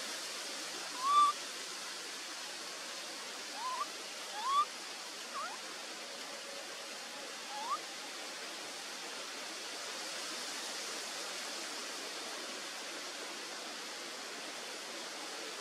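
Steady outdoor forest hiss with a handful of short, rising, chirp-like animal calls in the first half; the calls are the loudest sounds.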